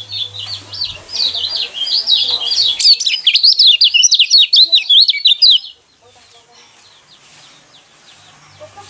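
White-eye (pleci) singing a fast, unbroken chattering song of high twittering notes, the competition-style 'gronsengan' song used to provoke other white-eyes into singing. It stops abruptly about six seconds in.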